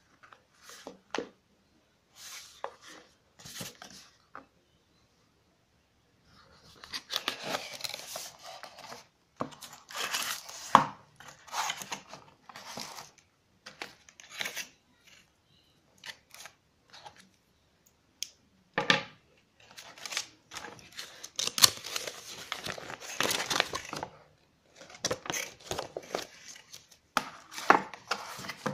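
Hands unpacking a cardboard product box: cardboard flaps scraping and a plastic bag crinkling in irregular bursts, with a quiet gap of about two seconds near the start.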